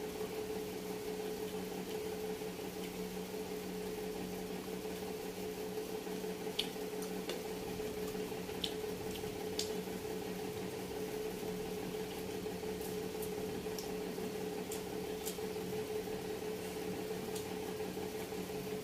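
A steady hum with a constant tone underneath, and scattered faint clicks and squishes of a person chewing food.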